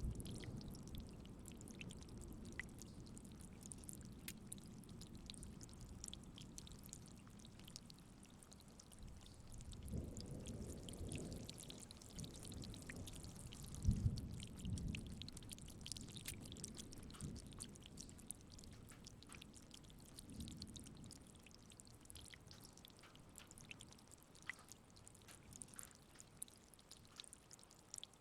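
Light rain falling, with scattered drops ticking. Thunder rumbles low and distant: a rumble dies away at the start, and two more swell about a third of the way in and again about halfway.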